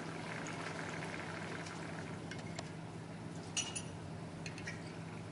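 Rum poured from a metal jigger into a tumbler glass, a faint splash, then a light clink about three and a half seconds in, over a steady low hum.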